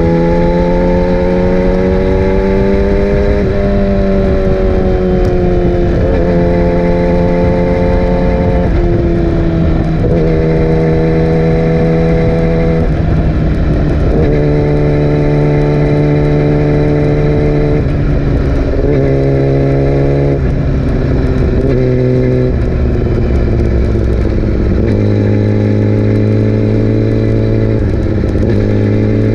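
Yamaha R6 inline-four sport bike engine running under way, heard continuously. Its pitch climbs slowly and drops in steps a number of times, as with gear changes.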